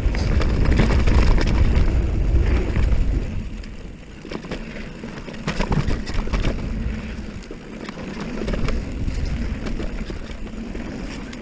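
Haibike electric mountain bike riding fast down a dirt singletrack: wind buffeting the microphone and tyres rolling over loose dirt and rocks, with scattered rattling knocks from bumps. The wind rush is strongest in the first three seconds and eases about four seconds in.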